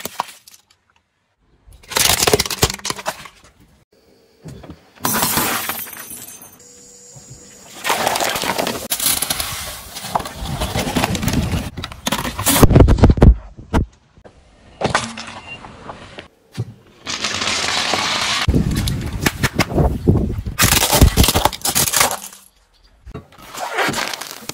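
A car tyre rolling over and crushing objects one after another: plastic bottles, a plastic toy and a drink can. It comes as a string of separate cracking, crunching and bursting sounds with short quiet gaps between them, the loudest burst about halfway through.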